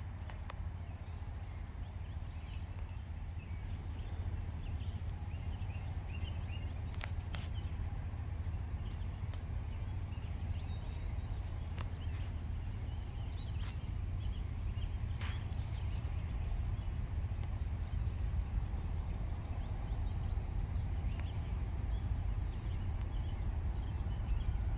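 A low, steady rumble that slowly grows louder, with scattered short bird chirps and a few sharp clicks over it.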